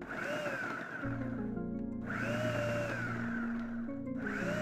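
Cuisinart FP-130 13-cup food processor run on pulse while chopping onion. The motor runs in bursts of about two seconds each, its whine rising and then falling with every pulse: two full pulses, with a third starting near the end.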